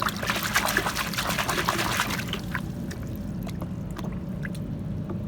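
Water splashing and trickling as a muddy toy is rubbed and rinsed by hand, busiest for the first two seconds or so, then thinning to a few scattered drips and clicks.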